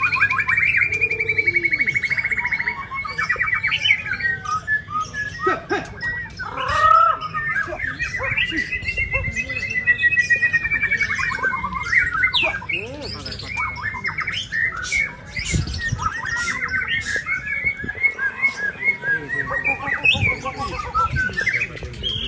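Several white-rumped shamas (murai batu) singing at once in competition, a dense, continuous tangle of fast trills, whistles and rapid repeated notes.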